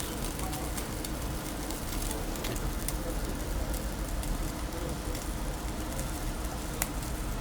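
Meat sizzling on a charcoal grill: a steady hiss with scattered small crackles and one sharper pop near the end.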